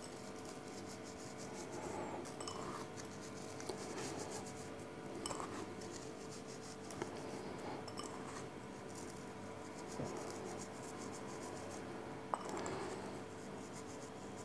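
Faint clinks and light scratches of fingers taking pinches of salt-and-spice curing mix from a small bowl and sprinkling it over trout fillets in a plastic container, with a few small clicks.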